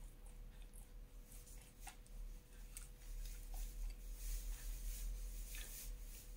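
A few small clicks of handling, then a slurping sip of hot ginger tea from a glass mug lasting about two seconds, in the second half.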